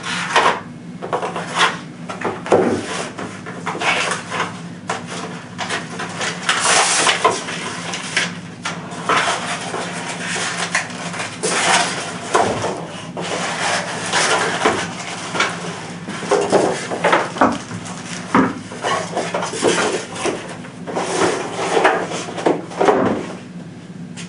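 Packaging and box contents being handled: irregular rustling, rubbing and light knocks of cardboard, paper and plastic as items are moved and lifted out, over a low steady hum.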